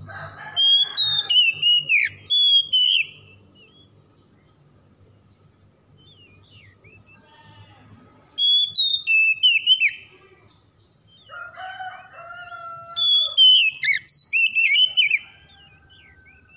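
Male Oriental magpie-robin singing three bursts of loud, fast-changing whistled phrases with short gaps between them. A lower, held call sounds beneath the song twice, near the start and again about eleven seconds in.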